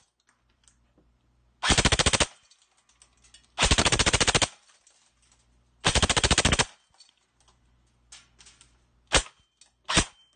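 Airsoft electric AR-15 fitted with a Tinley 35K motor on a 7.4 V LiPo, firing three short full-auto bursts of rapid mechanical shots, then two single shots near the end.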